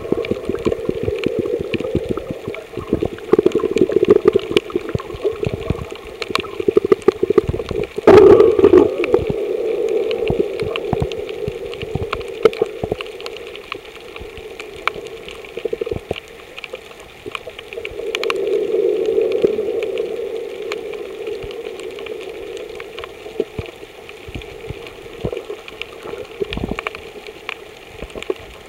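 Water heard underwater through a submerged camera: a muffled, gurgling wash of moving water with a steady crackle of small clicks. It is loudest around eight seconds in and softer through the second half.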